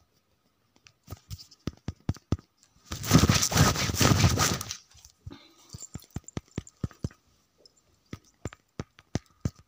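Handling noise close to a phone's microphone: red cloth rustling and rubbing against it, loudest for nearly two seconds in the middle, amid scattered clicks and taps.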